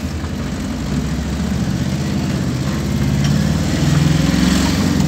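A vehicle's engine running, revving up and getting louder about three seconds in, then easing off near the end.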